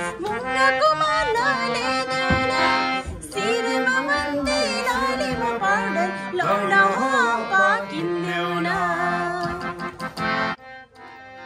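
Bina harmonium played by hand, with held reedy chords under a melody and a man's voice singing along in a folk style. The playing stops suddenly shortly before the end.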